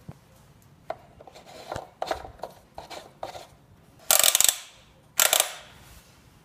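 Light clicks and knocks of hand work on the car's engine, then two loud, short rasping bursts about a second apart.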